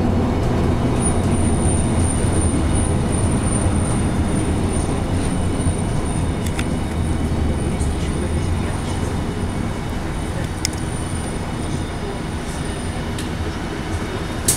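City bus engine running with road and tyre noise, heard from inside the passenger cabin while driving: a steady low hum under an even rumble, with a thin high whine through most of it and a few short sharp rattles.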